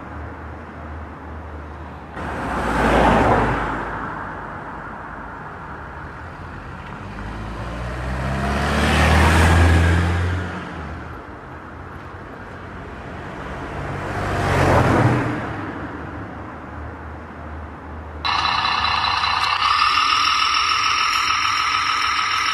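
Three vehicles passing one after another, each swelling up and fading away over two or three seconds; the second carries a low engine hum. About eighteen seconds in, the sound switches abruptly to a steady mix of high whining tones.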